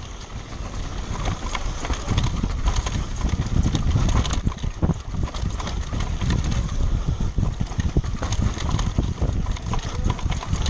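A mountain bike descending rough ground at speed: a continuous rattle with many irregular knocks and clatters as the wheels hit the terrain, over a rumble of wind and rolling noise.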